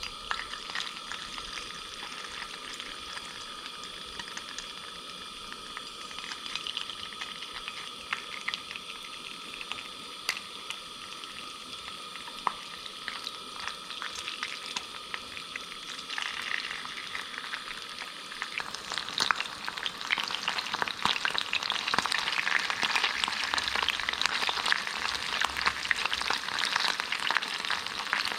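Small moroko fish frying bare in hot oil in a skillet, a steady sizzle with fine crackles that grows louder and busier about two-thirds of the way through.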